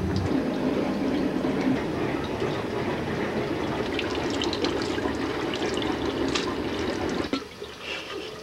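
Bathroom sink tap running water into the basin, with a few small splashes and knocks; the flow cuts off about seven seconds in.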